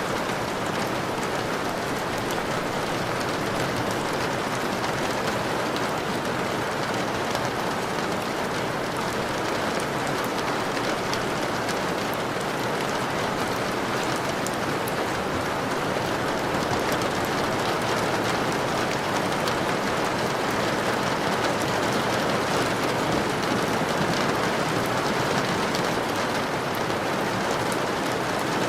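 Steady rain falling: an even hiss with scattered small drop ticks, holding level throughout.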